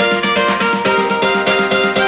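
Background music: quick plucked notes over a steady beat.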